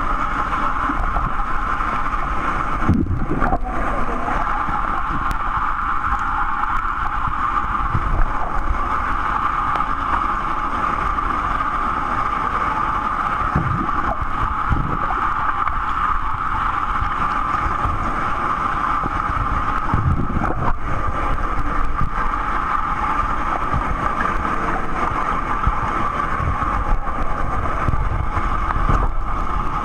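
Muffled underwater sound of a swimming pool picked up by a submerged camera: a steady rushing hum of the water with dull thumps now and then from swimmers kicking and splashing.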